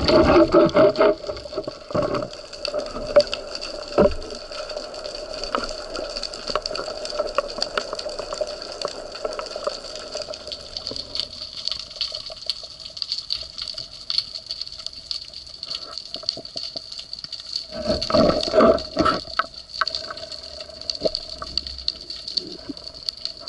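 Underwater sound picked up by a camera on a speargun during a free dive: a steady hiss with two constant tones and scattered crackling clicks, broken by louder rushes of moving water at the start and again near the end.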